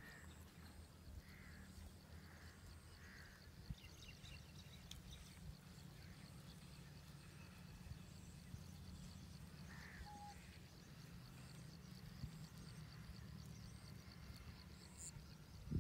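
Near silence: faint open-field ambience with a steady low hum, a fast, high, even trill throughout, and a few faint, short distant calls.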